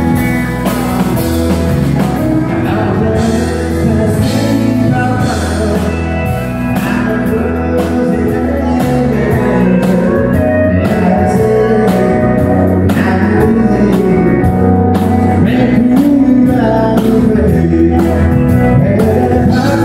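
Live country band playing: strummed acoustic guitar, electric guitar, pedal steel guitar and drum kit, with a male lead singer's voice.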